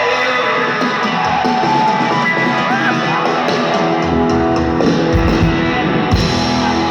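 Band music with guitar.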